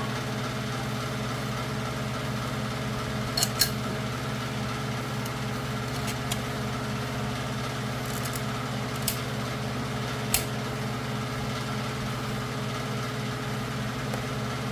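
Five or so sharp metal clicks and taps as transmission clutch parts (washers and a wave spring) are fitted into the clutch drum, over a steady machine hum in the shop.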